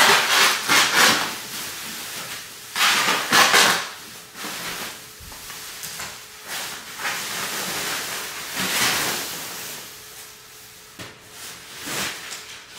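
Large plastic protective sheet rustling and crinkling in irregular bursts as it is pulled off a flat-screen TV and flung aside, loudest in the first second and again about three seconds in.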